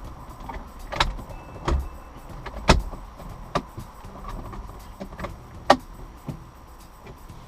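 A series of sharp knocks and clunks, five or six of them spread over several seconds, the loudest a third of the way in and near the end: a screwdriver and the plastic glove-box trim of a car being handled while the glove box is unscrewed.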